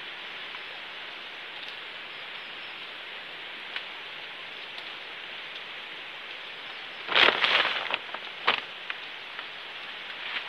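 Chilli plants rustling and crackling as ripe red chillies are picked: a loud burst about seven seconds in and a shorter one a second later, with a few small clicks. A steady hiss lies under it.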